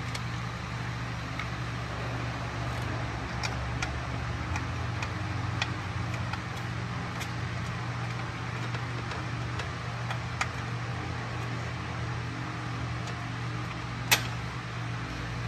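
Light clicks and taps of hands handling an electric radiator fan and its aluminum shroud during test fitting, over a steady low hum; one sharper click near the end.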